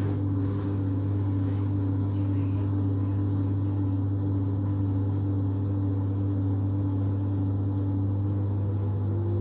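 LG washing machine running with a loud, steady low hum, its motor tone rising in pitch near the end.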